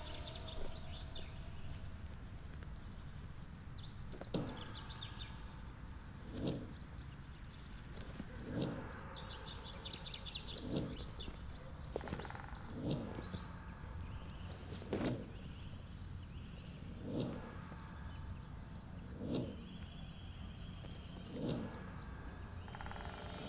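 Ambient sound: soft, evenly spaced pulses about every two seconds over a steady low hum, with birds chirping now and then.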